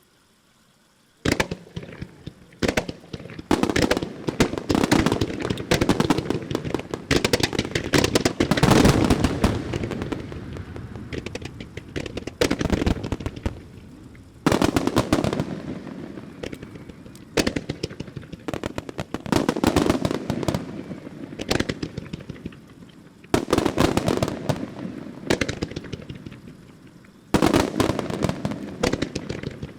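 Extra-large starmine fireworks barrage: rapid volleys of shells launching and bursting with dense crackling reports, starting about a second in and surging in loud waves every few seconds.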